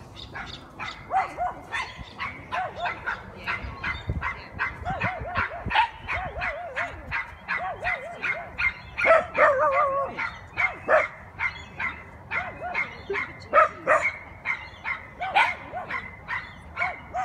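Dog barking over and over in quick short barks, about four a second, without a break.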